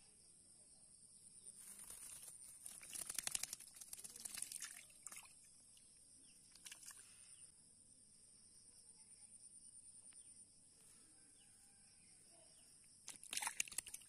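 Faint rural outdoor ambience with a steady high insect drone, broken twice by louder bursts of rapid rattling clicks, around two to five seconds in and again near the end.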